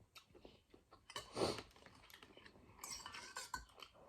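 Eating noodle soup close to the microphone: soft chewing and a short slurp about a second in, then several light clinks of a metal utensil against the bowl near the end.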